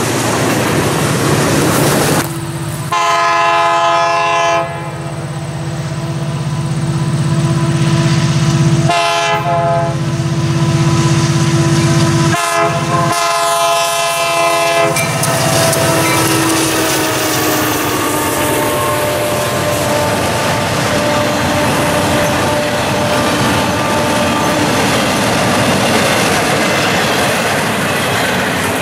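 Freight cars rolling past on the rails, then a diesel locomotive's air horn sounding for a grade crossing: two long blasts, a short one and a last long one whose pitch drops as the locomotive passes. After it comes the steady rumble and clatter of the train's cars going by.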